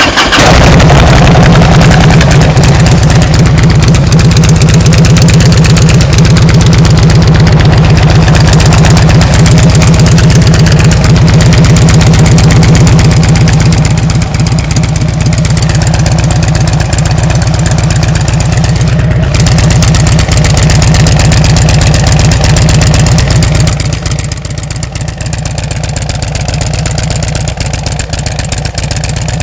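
Exhaust of a 2007 Harley-Davidson Ultra Classic's Twin Cam 96 V-twin running through Rush slip-on mufflers with 1.75-inch baffles. It is very loud and steady, then settles to a quieter level about 24 seconds in.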